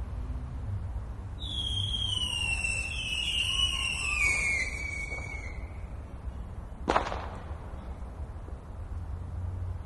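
Fireworks: a whistling firework screams for about four seconds, its pitch sliding slowly down, then a single sharp bang goes off about seven seconds in and echoes briefly. A low steady rumble lies underneath.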